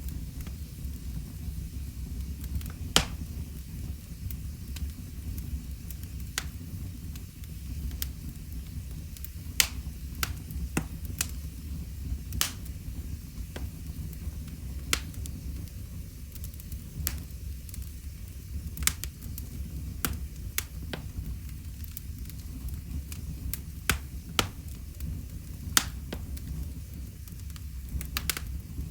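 Wood fire crackling in a fireplace: irregular sharp pops and snaps, a few louder than the rest, over a low steady rumble of the flames.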